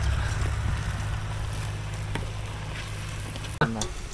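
A steady low mechanical hum, like a motor running, with a brief pitched voice-like sound about three and a half seconds in.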